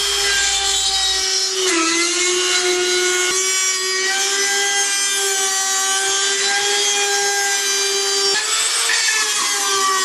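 Handheld rotary tool running at high speed with a steady whine as its bit cuts through the dryer's plastic blower wheel to free it from the motor shaft. The pitch sags briefly under load about two seconds in and again near the end.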